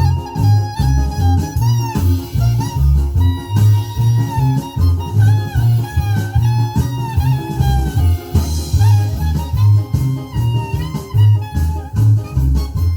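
Recorded music playing back from a CD on a Philips CD614 player: a pulsing bass line under a wavering melody line, with no pauses.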